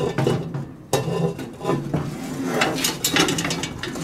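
Cast-iron Dutch oven lid being lifted off and set aside with a metal lid lifter: several iron-on-iron clanks and scrapes, the sharpest about one second in and again near two and three seconds.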